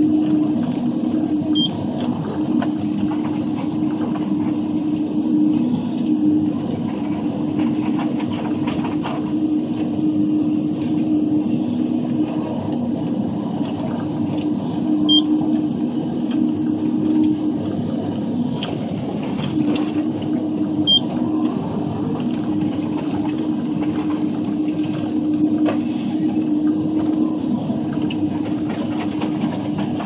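Log processor's diesel engine and hydraulics running steadily as the Waratah 622B head works, a constant low hum with a few faint knocks and clicks scattered through.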